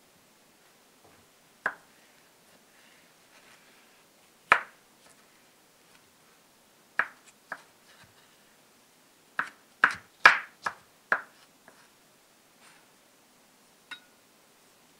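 A kitchen knife cutting food and knocking on a wooden cutting board: scattered single cuts, then a quick run of five cuts about ten seconds in.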